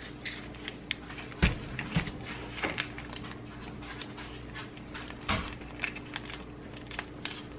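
Kitchen scissors cutting open a vacuum-sealed plastic meat package, with a few sharp snips and clicks and light plastic rustling, over a steady low hum.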